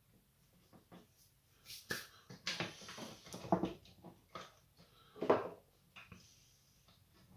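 Hands handling wires and small metal parts inside an opened sandwich toaster: scattered clicks, rustles and knocks, the louder ones about two and a half, three and a half and five seconds in.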